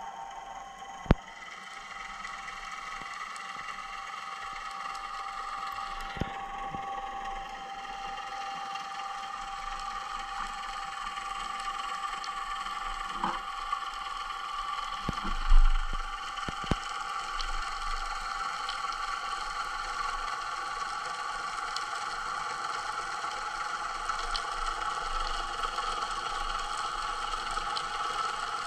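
Underwater ambience picked up through a camera's waterproof housing during a dive: a steady hiss with a few scattered knocks, the loudest a thump about halfway through.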